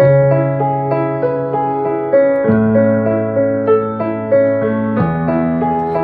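Samick grand piano playing a slow pop chord progression with both hands: a held left-hand bass note under the right hand's chord notes in a steady rhythm, the bass changing about every two and a half seconds.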